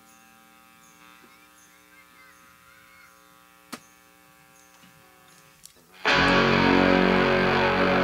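Quiet steady amplifier hum with a single sharp click, then about six seconds in a live band comes in loud all at once, led by guitar.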